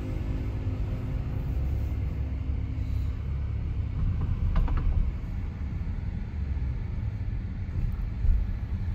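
Steady low rumble of tyres and engine heard from inside a car's cabin while driving slowly, with a few brief clicks about four and a half seconds in.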